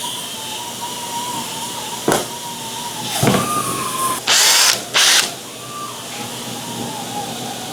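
Electric drill running a wet-sanding pad, its motor whining steadily with the pitch dipping and picking back up about three seconds in. Several short, loud hissing bursts come through the middle.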